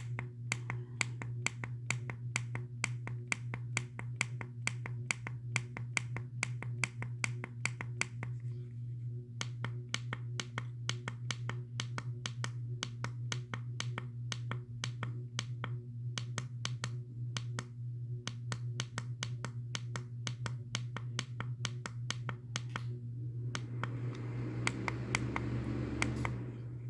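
Rapid, evenly spaced clicks of a Digiten wireless thermostat's buttons being pressed over and over to step the set temperature up, in runs with brief pauses, over a steady low hum.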